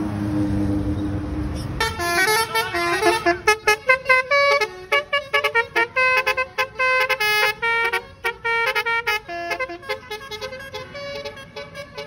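Telolet horn, a multi-tone musical vehicle horn, playing a rapid melody of short stepping notes from about two seconds in, after a vehicle engine running with a held horn note at first.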